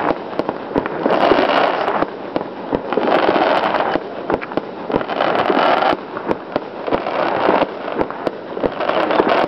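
Aerial fireworks display: a dense run of bangs and crackling bursts, coming in waves about every one and a half to two seconds.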